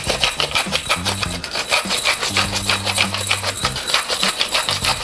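Hand salt grinder being twisted, a fast steady run of crackling grinding clicks, with soft background music underneath.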